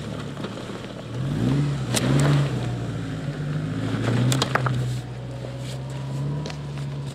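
Great Wall Hover SUV engine under load, its pitch rising about a second in and then holding steady as the vehicle pulls slowly through deep snow and mud. A few sharp cracks sound around two and four and a half seconds in.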